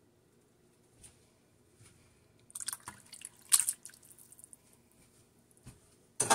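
Wooden spoon stirring soup in an enamelled pot, the liquid sloshing and dripping. There is a louder run of splashing strokes from about two and a half to four seconds in, and a loud clatter right at the end.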